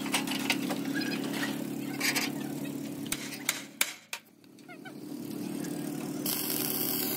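Workshop machinery: a steady engine or motor hum with scattered clicks and knocks. It drops out briefly about four seconds in, then returns with a loud hiss from about six seconds in.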